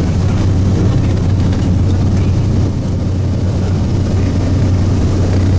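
Skydiving jump plane's propeller engine running steadily: a constant low drone over a wash of engine and air noise.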